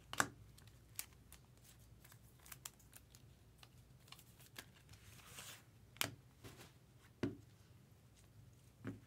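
Faint, scattered taps and clicks of baseball cards and hard plastic card holders being handled, with a brief rustle about five seconds in.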